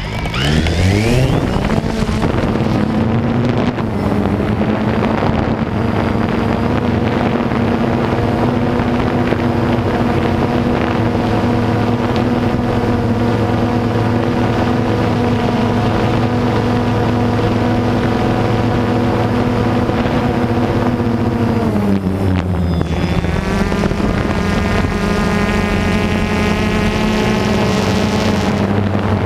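DJI Phantom quadcopter's four motors and propellers spinning up at takeoff, rising in pitch over the first two seconds, then a steady, loud buzzing hum in flight. About 22 seconds in the pitch dips a little and settles into a slightly lower hum.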